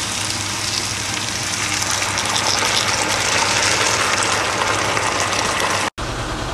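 Water poured into a hot frying pan of sautéed green beans, gushing and hissing steadily as it hits the hot pan; it cuts off abruptly near the end.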